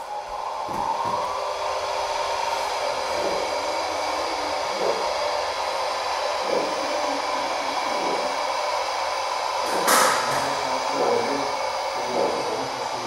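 Gauge 1 model steam tank locomotive running slowly, its smoke unit puffing vapour from the cylinders: a steady hiss with a steady tone and occasional soft knocks, and a short, louder hissing burst about ten seconds in.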